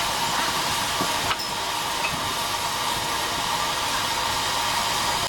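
Narrow-gauge steam locomotive standing with steam hissing steadily.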